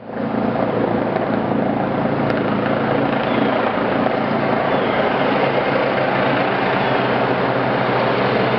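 Helicopter approaching to land: steady rotor and turbine drone with a low even hum.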